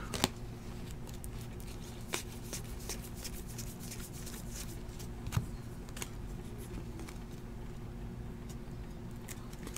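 Trading cards being handled and slid through a stack by hand, with faint scattered ticks and rustles over a steady low hum.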